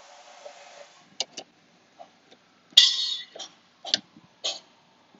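Scattered light clicks and rustles of hands handling plastic dash trim, with a short, louder scraping rustle about three seconds in.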